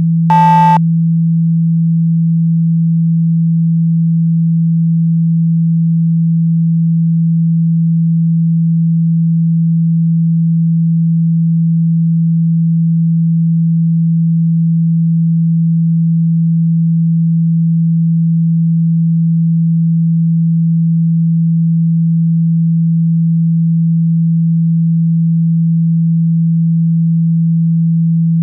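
A speaker-cleaning tone: a steady low pure tone held without change, meant to vibrate water and dust out of a phone's speaker. A brief, higher beep sounds right at the start.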